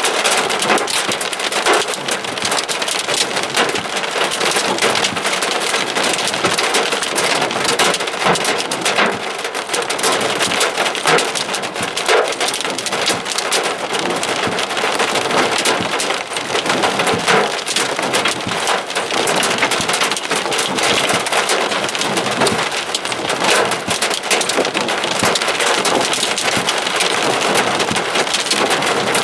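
Hailstones, up to about an inch across, and heavy rain pelting a car's roof and windshield in a severe thunderstorm, heard from inside the car: a dense, irregular clatter of hard hits over a steady roar of rain.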